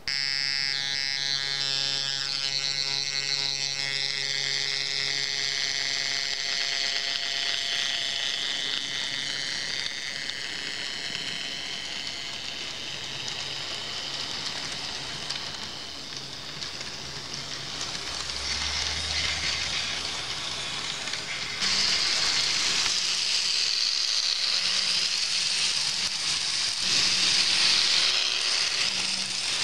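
N-scale model train, a Minitrix class 218 diesel locomotive hauling coaches, running past on the track: its small electric motor whines over the wheels rattling along the rails. The whine fades over the first several seconds, leaving a hissing rattle that turns louder about two-thirds of the way through.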